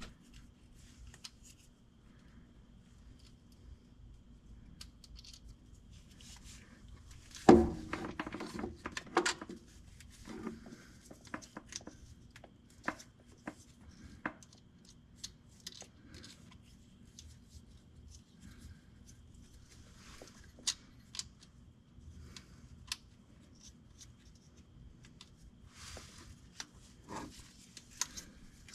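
Hand tools clinking and knocking against metal during work on a pickup's starter: scattered light clicks with a louder knock about seven and a half seconds in, over a faint steady hum.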